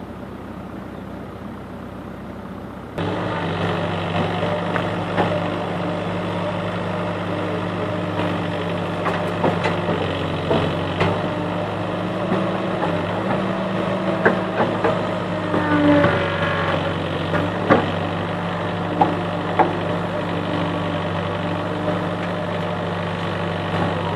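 Diesel engine of a CASE backhoe loader running steadily while it works its hydraulic arm, with sharp knocks of rocks landing in a steel tractor trolley several times. It is quieter at first and steps up to a louder drone about three seconds in.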